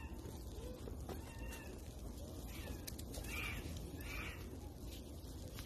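Short animal calls: a few faint ones, then two louder calls about three and a half and four seconds in, over a steady low rumble.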